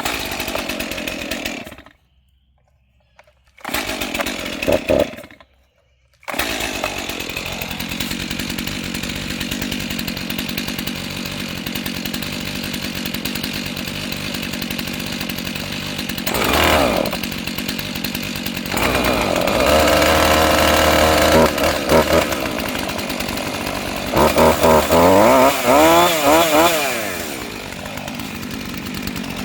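Two-stroke chainsaw starting up: two short bursts with silence between, then it catches at about six seconds and runs on, with the throttle blipped up several times in the second half. The saw had been thrown off a moving truck and is being checked to see whether it still runs.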